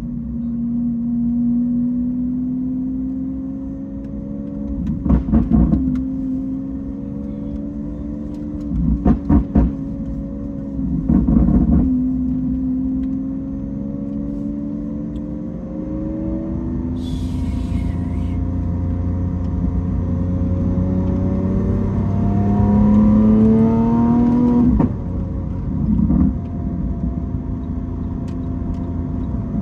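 Engine of a vehicle under way on the road, running with a steady tone that drifts slowly up and down. It climbs as it speeds up a few seconds before the end, then drops off sharply. There are a few short loud bursts in the first half and a brief high hiss midway.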